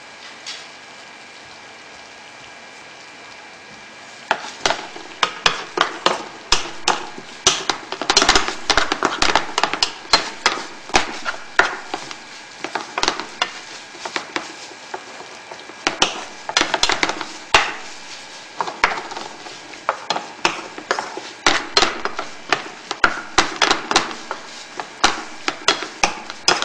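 Fried rice with stir-fried pork sizzling in a frying pan, a steady hiss at first; from about four seconds in, the spatula scrapes and clacks against the pan several times a second as the rice is stirred and tossed.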